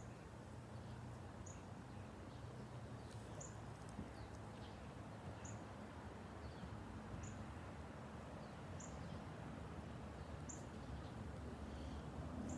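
A small bird's short, high chirp repeated about every one and a half to two seconds, with a few fainter lower chirps between, over a low steady background hum.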